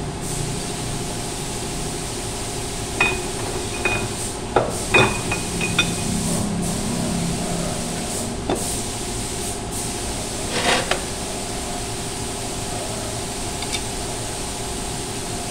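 Scattered sharp metal clinks and knocks from tools and parts being handled at a forklift wheel hub, most of them in the first half and a short cluster about two-thirds of the way through, over a steady mechanical hum.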